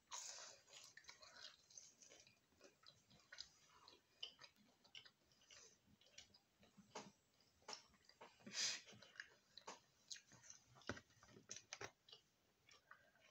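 Faint chewing of fried chicken and chips, with scattered small clicks of mouth and food; one louder click about nine seconds in.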